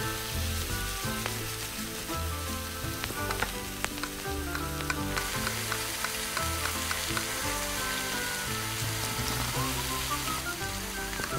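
Food sizzling as it fries in a miniature steel pot, with the small spoon clicking and scraping against the pot while stirring. Soft background music with steady notes plays underneath.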